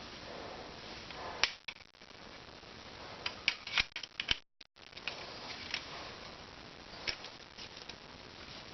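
Scattered sharp clicks and taps of Lego pieces being handled, with a quick cluster of clicks about three to four seconds in.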